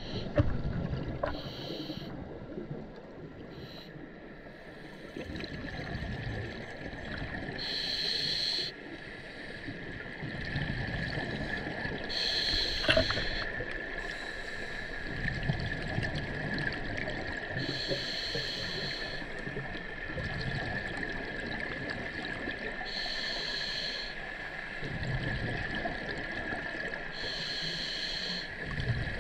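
Scuba regulator breathing heard underwater: a roughly one-second hissing inhale about every five seconds, with the low bubbling rumble of exhaled air between. A faint steady high whine sits under it.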